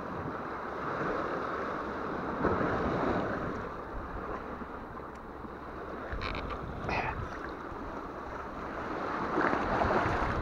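Shallow seawater lapping against rocks and splashing as a hand moves caught mullet in and out of the water, with louder splashes about two and a half seconds in and again near the end.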